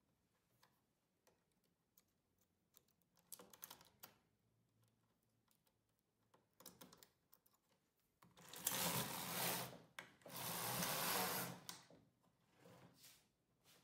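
Carriage of an Empisal midgauge knitting machine pushed across the needle bed, rattling and sliding over the latch needles in two passes of about a second and a half each, about eight seconds in. Before the passes, scattered light clicks of needles being moved by hand.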